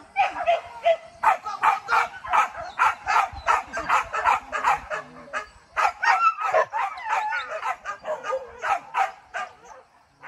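Hunting dogs yelping and barking in rapid, overlapping calls, several a second, while on the trail of wild boar. The calls thin out near the end.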